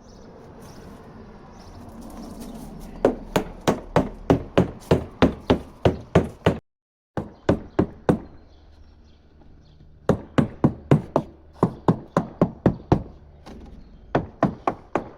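A surveyor's hammer tapping on a sailboat in quick, even runs of about three knocks a second, with short pauses between runs. This is percussion sounding: a solid knock marks sound structure, and a hollow or tinny one points to possible delamination or moisture.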